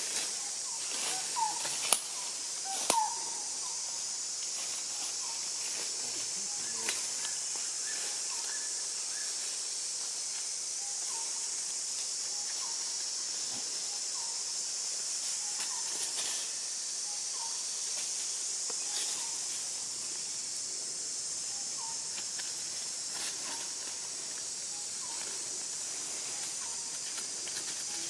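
Steady high-pitched drone of forest insects. A few sharp clicks come in the first three seconds, and faint short chirps recur every second or two.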